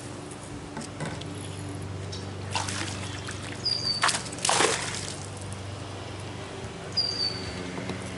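A hooked bass splashing at the water's surface as it is brought to the boat, three short splashes in the middle, under a steady low hum. A bird gives two short, high, falling whistles.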